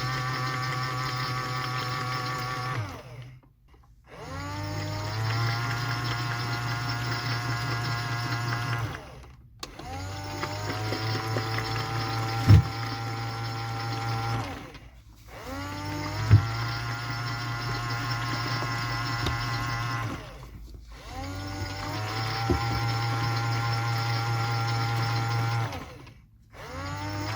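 AEG/Electrolux Lavamat 84950 front-loading washing machine tumbling its drum during a rinse: the motor whines up to speed, turns the drum for about four to five seconds, stops for about a second, then starts again, five times over. Two sharp knocks come in the middle, load against the drum.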